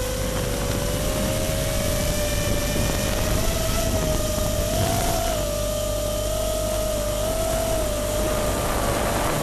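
FPV quadcopter's electric motors and propellers whirring steadily in flight, their pitch drifting slightly up and down with throttle, over a rush of air noise.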